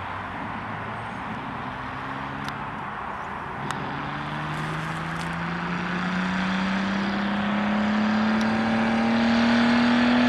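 Fordson Dexta tractor with a Ford Granada V6 engine accelerating toward the listener: the engine note is faint at first, then from about four seconds in it climbs steadily in pitch and grows louder.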